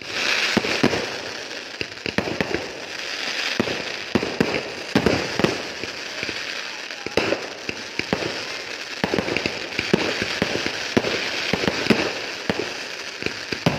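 Fireworks going off in a rapid, continuous run of bangs and pops over a steady crackle and hiss, with a louder bang every second or so.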